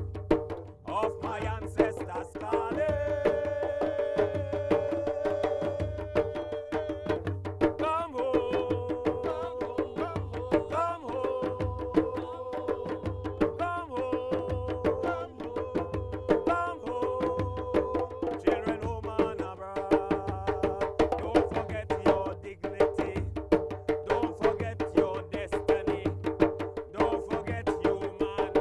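Hand drums playing a fast, steady rhythm with sharp wood-block-like clicks. Voices sing long held notes over the drums, changing pitch every few seconds.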